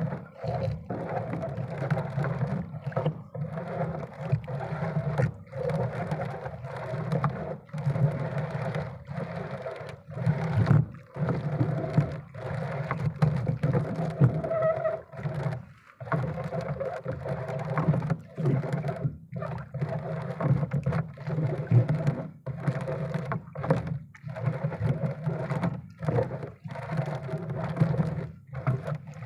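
A small motor running steadily with a low hum, broken by short irregular dips in level.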